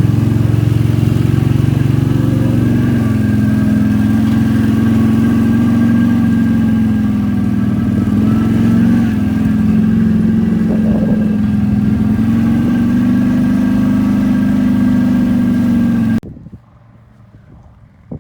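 ATV engine running steadily as the quad rides along, its pitch rising and falling slightly with the throttle. The sound stops abruptly near the end.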